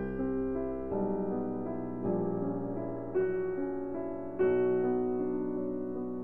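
Background piano music: calm notes and chords struck about once a second.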